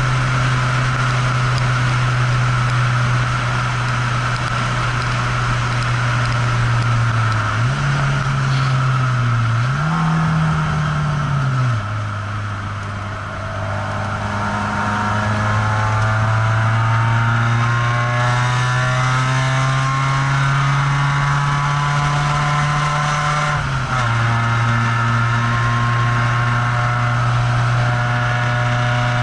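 Citroën ZX Dakar's engine heard from inside the cabin at speed on track, over road and wind noise. The engine note rises and dips twice in the first half, then quietens briefly. It climbs slowly, falls suddenly as at a gear change, and runs on steady.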